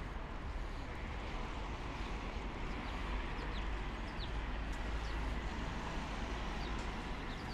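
Street ambience dominated by a steady hum of road traffic, with a few short high chirps about halfway through.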